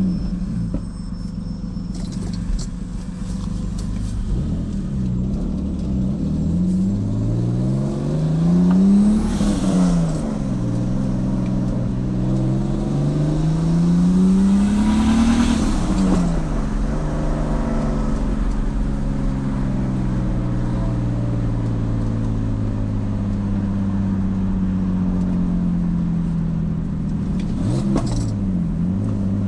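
Turbocharged BMW E46 engine accelerating: the revs climb twice, each climb falling away sharply at a gear change, then settle into steady running with slowly sinking revs and a brief dip near the end.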